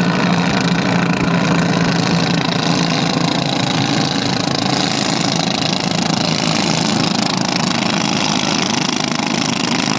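Engines of several racing dompeng boats, small single-cylinder diesels of the 24 hp class, running flat out in a loud, steady drone.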